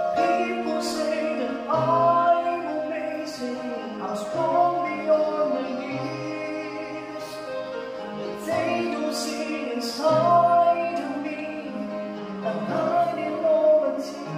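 A man singing a slow gospel ballad solo into a microphone, with wavering held notes, over a steady instrumental accompaniment of held chords.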